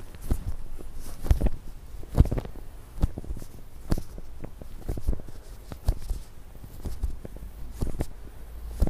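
Fingers pressing and rubbing a squishy rubber brain model spread with cream, close to the microphone: soft, sticky taps and squelches about once a second.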